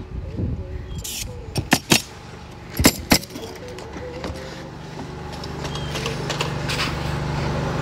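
Pneumatic roofing nail gun firing about five sharp shots in the first three seconds. A low steady hum grows louder through the second half.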